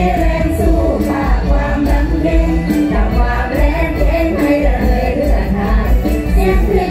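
Live mor lam band music through the stage sound system: a woman sings the lead melody into a microphone over a heavy, steady bass beat.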